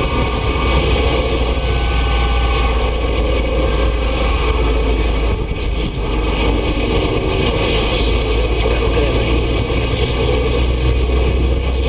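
A CB radio receiver on the 27 MHz citizens band putting out a steady rush of static with a low hum underneath, muffled by the set's narrow audio, with no clear voice coming through.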